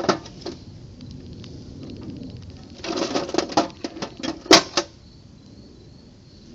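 Clicks and scrapes of small metal parts and tools, from fitting the steel key into the pulley on a mower blade spindle: a sharp click at the start, then a flurry of clicks and scrapes about three seconds in, the loudest knock near four and a half seconds.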